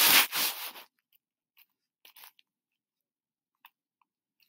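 A brief loud rustle of noise at the start, then a few faint, scattered clicks of a computer keyboard and mouse as a search is typed in.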